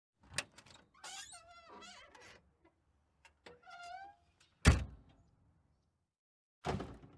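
1969 Chevrolet Impala trunk lid worked by hand: a latch click, then the hinges creaking in two wavering squeals as the lid swings, then the lid slamming shut about two-thirds of the way in, the loudest sound, and a second, softer slam near the end.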